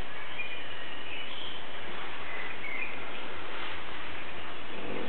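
Steady background noise with a low hum and a few faint, short high chirps.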